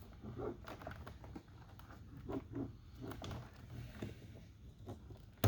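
Hands handling plastic door-trim parts, with small scattered clicks and rustles and one sharp click near the end.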